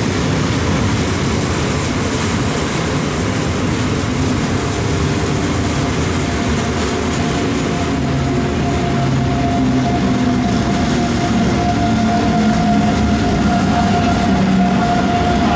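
ÖBB Railjet Xpress train pulling out of the station close by: a steady, loud rumble of wheels and running gear, with a steady whine coming in about six seconds in.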